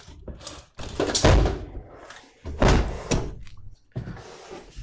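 A plastic-bodied semi-automatic twin-tub washing machine being tipped up from its side and set down on the floor: several heavy thumps, the loudest about a second in and near three seconds.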